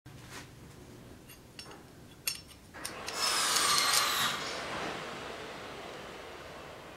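A few light metal clinks as steel pieces are handled on an anvil, then about three seconds in one long metal-on-metal scrape, lasting about a second and a half, as a flat steel bar is drawn against a thin metal plate; the metal rings faintly and fades away over the following seconds.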